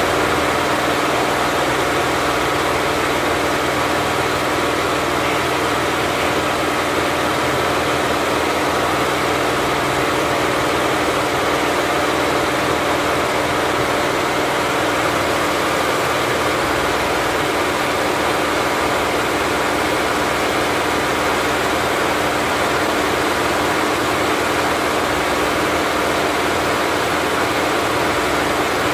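Richpeace 20-head flat embroidery machine running at 1200 RPM, all heads stitching together in one steady, even mechanical running sound that does not let up.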